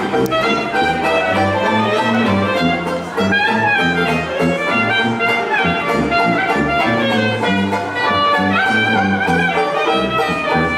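Small jazz band playing, a sousaphone carrying the bass line under the horns.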